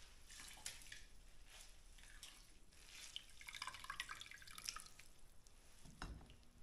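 Faint water dripping and splashing into a steel basin as handfuls of shredded Chinese sauerkraut are squeezed out of their washing water. A soft low bump comes near the end.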